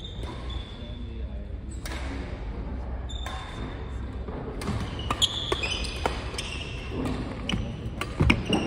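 Badminton doubles rally: court shoes squeaking on the hall floor and rackets striking the shuttlecock. The exchange becomes busy about halfway through and ends in a hard smash near the end, the loudest hit.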